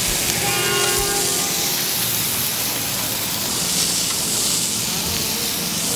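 Polish sausages sizzling over an open flame on a hot grill, a steady hiss.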